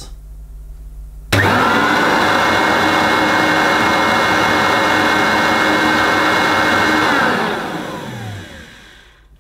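Hoover Turbomaster upright vacuum cleaner switched on: the motor starts abruptly about a second in with a short rising whine, then runs steadily with a high whine over the air rush. A few seconds later it winds down, its whine falling and fading out near the end. It is running in the upright position with the brush roll not turning, and it doesn't sound too bad for a worn old machine.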